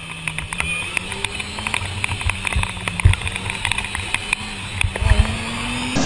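Motorcycle engine running with rushing wind and road noise, picked up close by the rider's camera. There are two heavy thumps, about three seconds in and again about five seconds in. The engine note rises near the end.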